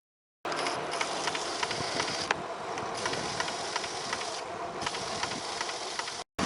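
A bicycle being ridden outside, with the tyres rolling and a steady rush of wind on the microphone, dotted with many small ticks. It starts suddenly about half a second in and cuts out briefly near the end.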